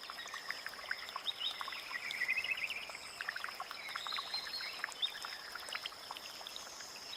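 Rainforest ambience: a steady high insect drone with many short chirps and calls from small animals, and a warbling run of calls about two seconds in.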